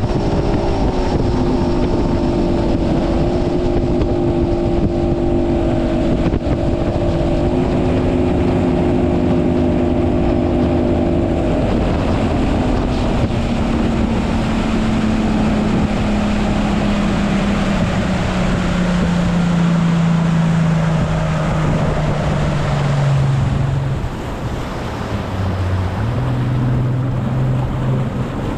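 A motorboat engine runs under way, with wind buffeting the microphone and water rushing past the hull. About halfway through, the engine note begins falling steadily as the boat slows. It dips briefly, then settles into a low steady note near the end.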